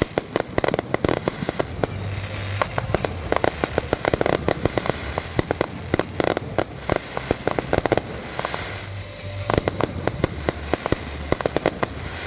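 Fireworks going off in a continuous barrage of sharp cracks and rapid crackling pops, coming in clustered salvos. A high whistle falls in pitch about two-thirds of the way through.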